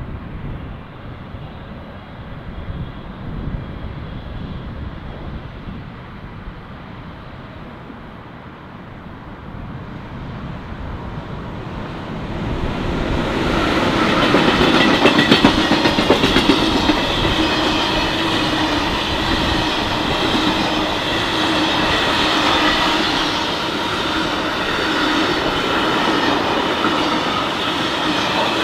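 Electric freight train passing close: the sound grows louder about twelve seconds in as the electric locomotive arrives, then a long string of freight wagons rolls by with the clickety-clack of wheels on rail joints and steady tones running over the rolling noise.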